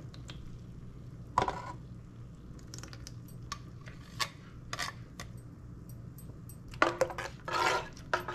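Kitchen utensils clinking and knocking against pots and dishes: a scattering of separate sharp clinks, coming closer together near the end, over a faint steady hum.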